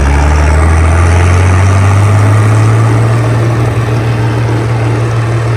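Massey Ferguson 1130 tractor's six-cylinder diesel engine running loud through a straight-pipe exhaust with no muffler, pulling under throttle. Its pitch rises a little in the first second as it picks up speed, then holds steady.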